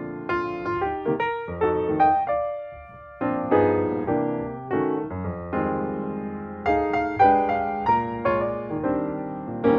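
Piano music: struck chords and notes that ring and fade, with a brief pause about three seconds in.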